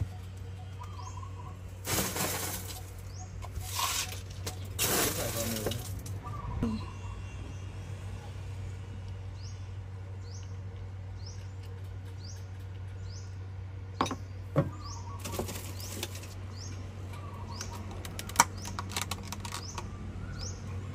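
Ice cubes tipped into a plastic cup of milk in three rattling pours in the first few seconds, then a few sharp clicks near the end as the plastic dome lid is pressed on. Birds chirp in short rising calls about once a second throughout, over a steady low hum.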